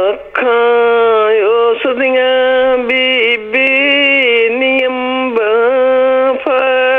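A woman singing a Punjabi folk song unaccompanied, in long held notes that waver and bend in pitch, with brief breaths between phrases.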